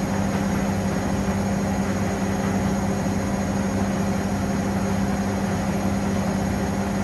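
Washing machine running on a cotton 40° programme: a steady mechanical hum with one strong low tone and no change in pitch or level.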